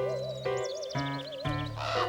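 Cartoon background score: held low notes under a wavering high melodic line. A quick run of short high chirps comes in about half a second in.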